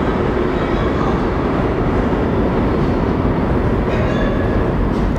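New York City subway train running through the station: a loud, steady rumble of steel wheels on rail.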